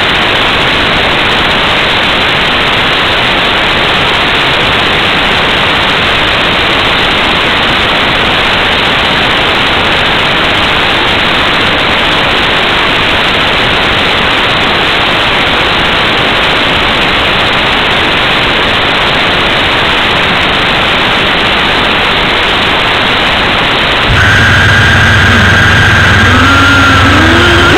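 Loud steady static hiss from the audio channel of an analog FPV video receiver. Near the end, steady and wavering tones come in over the hiss.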